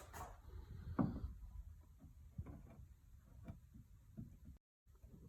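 A few faint, scattered clicks and knocks, the sharpest about a second in, with the sound cutting out briefly near the end.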